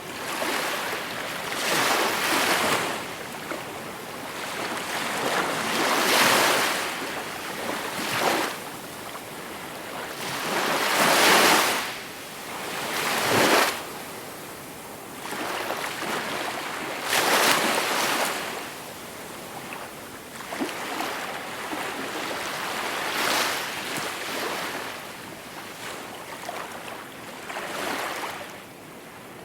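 Gentle sea waves washing onto the shore, one surge of surf every few seconds, each swelling and falling away, the loudest about a third of the way in and again just past halfway.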